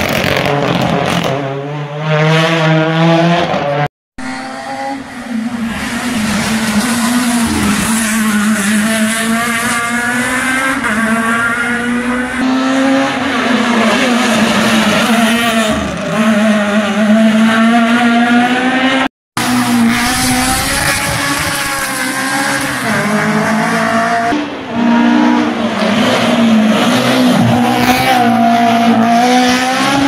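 Rally car engines, among them a Renault Clio rally car, revving hard through a tight corner, their pitch climbing and dropping with each gear change. Three passes are spliced together, with abrupt cuts about four seconds in and again past the middle.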